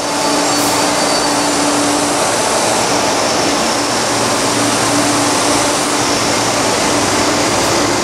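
MTR East Rail line electric train running into the platform: a loud, steady rush of wheel and motor noise with a steady hum under it.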